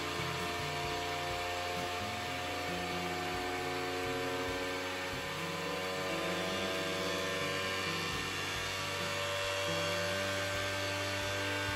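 Flashforge Adventurer 5M CoreXY 3D printer running its automatic vibration calibration: the stepper motors shake the print head to test for resonance, making an extremely noisy buzzing hum whose tones shift in pitch as the test moves through its frequencies.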